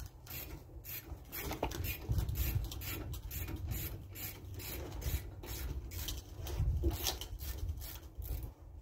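Rhythmic metallic clicking and rubbing, about three or four clicks a second, with a low rumble that swells now and then, from hand work on the Expedition's front wheel, brake and steering parts.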